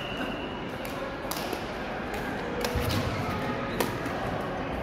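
Badminton rackets striking shuttlecocks: a handful of sharp, separate hits, the loudest nearly four seconds in, over the echoing background of a large hall with several games in play.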